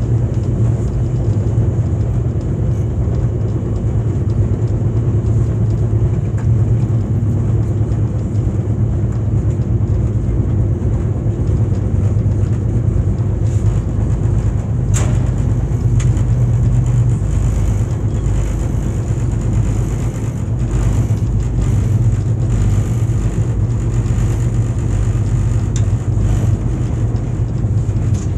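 Steady low rumble and hum of a VIA Rail passenger train running at speed, heard from inside the coach. A single sharp click comes about halfway through.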